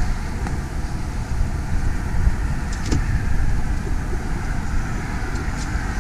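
Steady low rumble of outdoor background noise, with a faint click about three seconds in.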